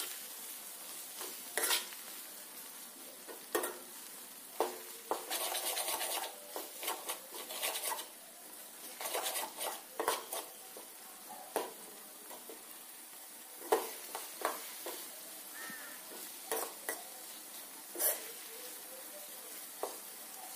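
Perforated steel spatula scraping and clinking against a metal kadai as a thick tomato-and-spice pickle mixture is stirred in hot oil, with longer scrapes about five and nine seconds in. A faint sizzle of the frying runs underneath.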